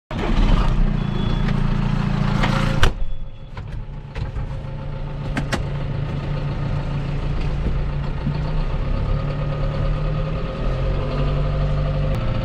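John Deere loader tractor's engine running steadily as it drives, heard from inside the cab. There is a sharp clack about three seconds in, after which the engine sounds quieter for a moment.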